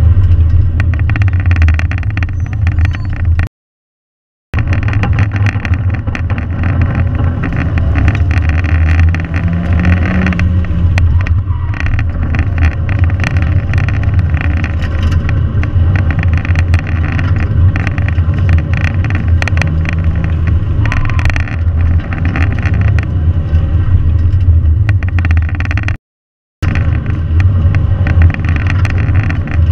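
2001 Mazda Miata's 1.8-litre four-cylinder engine heard from inside the open cockpit, driven hard through an autocross run. The sound cuts out completely twice, for about a second near the start and briefly near the end.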